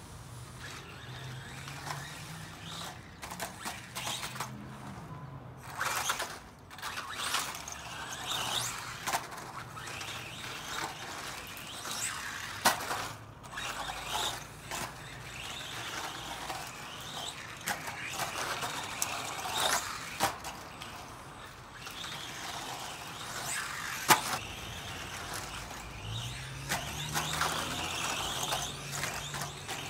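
Team Associated Reflex 14T electric RC truck driving over rough ground: tyres scrabbling and crunching in uneven spurts, with scattered clicks and a couple of sharp knocks. A faint motor note rises and falls near the start and again near the end.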